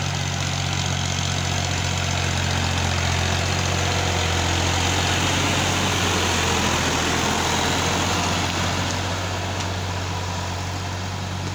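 New Holland farm tractor's diesel engine running steadily under load while it drags a rear leveling blade through loose soil and rubble. A rushing, scraping noise builds in the middle and eases after about eight seconds.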